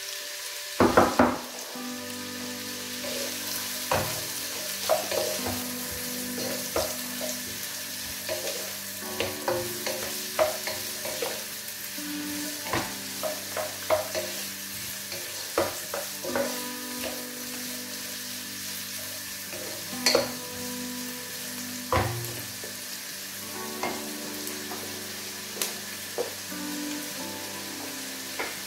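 Diced onions and whole spices frying and sizzling in a pot, stirred with a wooden spoon that knocks and scrapes against the pot now and then.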